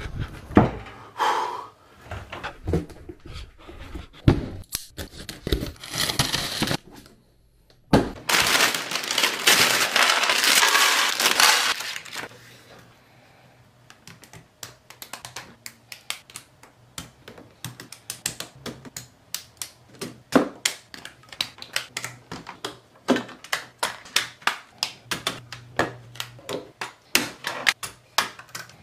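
Plastic building-brick parts of a Mould King P90 set clicking and rattling as they are handled and snapped together, many short sharp clicks in quick irregular succession. About eight seconds in comes a few seconds of loud rustling, like parts bags being opened.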